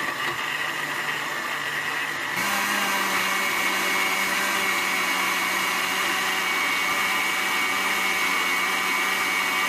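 Fresh electric countertop blender running, whipping a liquid coffee-and-butter mixture. Its motor hum steps up in pitch and gets louder about two and a half seconds in as it is switched to a higher speed, then runs steady.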